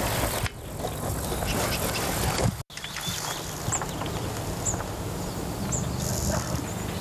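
Outdoor mountain ambience: a steady low wind-like rumble with a small bird's short high chirps about once a second in the second half. The sound cuts out for an instant near the middle.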